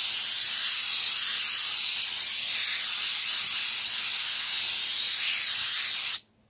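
Aerosol can of coconut oil cooking spray hissing steadily as it coats a frying pan, cutting off suddenly near the end.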